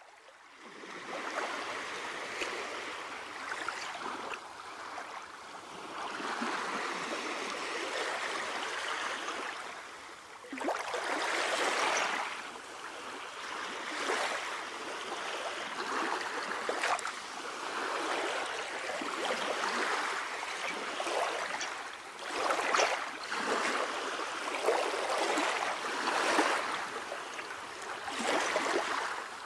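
Water sloshing and splashing in uneven surges every few seconds, with a few sharper splashes.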